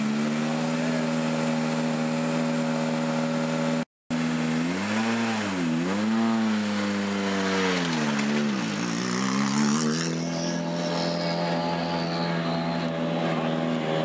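Hyundai i20 WRC rally car's turbocharged four-cylinder engine running at a steady idle. About halfway through, the revs swing down and back up twice, then settle to a steady idle again.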